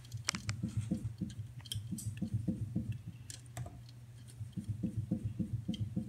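Goffin's cockatoo making soft, rhythmic low grunts, about four to five a second, as it bobs excitedly at a door handle. The grunts pause briefly about halfway through, then resume.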